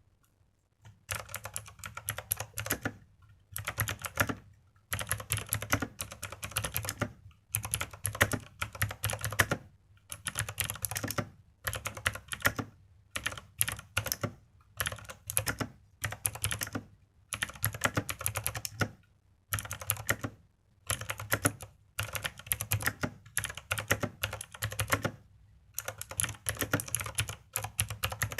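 Typing on a mechanical keyboard with green (teal) Outemu clicky, tactile switches: rapid bursts of sharp clicks, each run lasting a second or two, with brief pauses between.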